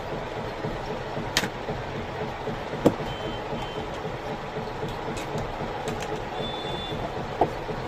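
Steady background noise with a few sharp clicks and short high-pitched beeps: two quick beeps about three seconds in and one longer beep near the end.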